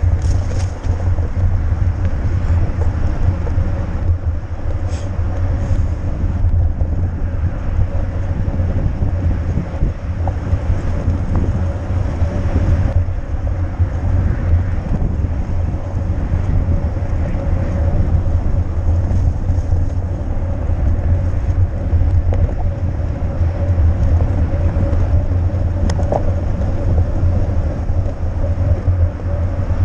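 A mountain bike rolling along, with a steady low wind rumble on the microphone over the tyre noise. There are a few sharp clicks from the bike: near the start, about five seconds in, and again near the end.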